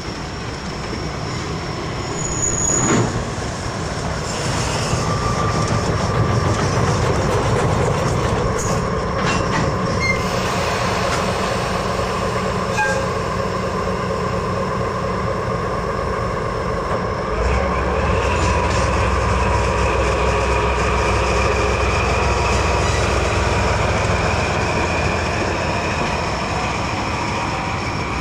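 Diesel locomotive running as it shunts freight wagons, with a sharp clank about three seconds in, steady squealing wheels, and a deeper engine rumble that comes in about two-thirds of the way through.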